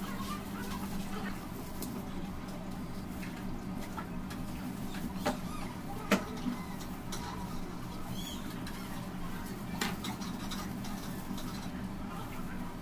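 Long cake knife sawing and scraping through sponge cake as the brown crust is sliced off the layers, with a few sharp clicks about midway and near the end. A steady low hum lies underneath.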